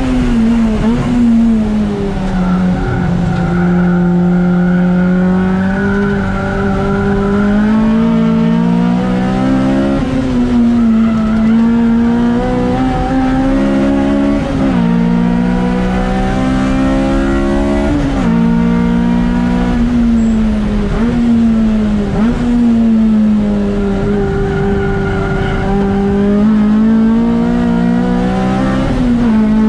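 Honda K20A four-cylinder engine in a track-prepared Civic at hard throttle on a lap. The engine note climbs steadily and drops sharply at each gear change, about five times, with lower, steadier stretches between the climbs where the car slows for corners.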